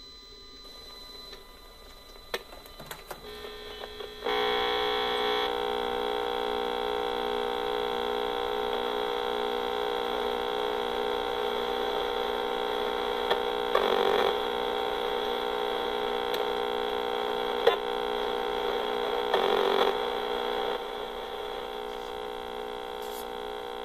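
Acoustimeter RF meter's speaker turning the Raspberry Pi 3B's microwave emissions into sound while the Pi boots with Wi-Fi and Bluetooth on. A steady buzzing hum of many stacked tones starts about four seconds in, with two brief louder bursts of rasping noise near the middle.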